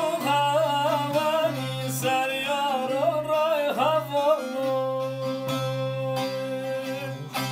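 A man singing a Turkish folk song to a bağlama (saz), the long-necked lute plucked and strummed underneath. The voice bends and ornaments its line for the first half, then holds one long note through most of the second half.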